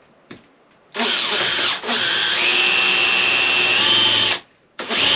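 Cordless drill-driver running into the plywood wall lining of a van: a short run about a second in, then a longer steady run whose whine steps up in pitch near its end, and another run starting near the end.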